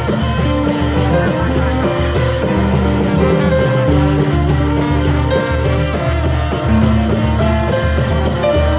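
Loud music with a steady beat and held instrumental notes.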